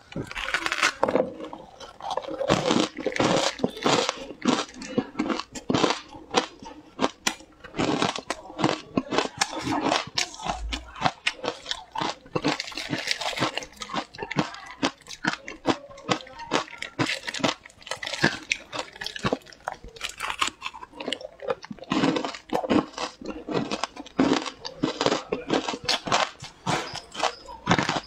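Frozen shaved ice coated in matcha powder being bitten and chewed: a dense run of crisp ice crunches close to a clip-on microphone, with brief pauses between mouthfuls.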